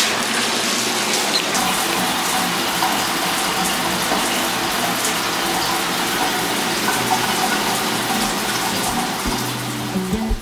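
Water running steadily from a ceiling-mounted rainfall shower head, its spray hissing down onto the shower's tiled floor.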